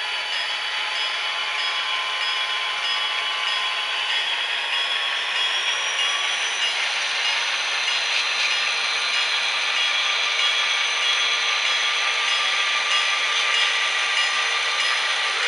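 DCC sound decoder in an H0-scale model diesel locomotive playing diesel engine sound through its small speaker as the model moves off slowly: a steady, thin mechanical rumble with no bass. A whine rises in pitch about four seconds in and then holds.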